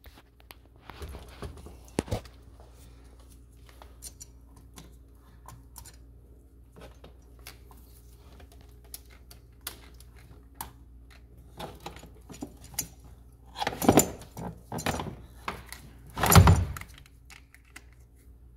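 Scattered clicks and knocks of a Motorcraft AGM car battery being handled and set in place in the engine bay, with two louder thuds near the end.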